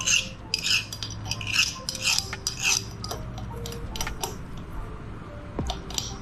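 Metal kitchenware scraping and clinking in short quick strokes, about two a second at first and sparser later, over a steady low hum.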